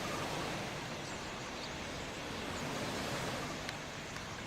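Massed chatter of a large starling flock settling into a tree roost: a steady hiss of many birds at once, with a few faint single calls standing out.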